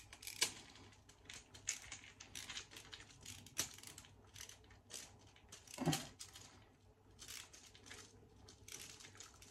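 Hand screwdriver turning a terminal screw on a plastic Hive receiver backplate, winding it down to clamp a wire: a run of small, irregular clicks and ticks of metal tip on screw head and plastic.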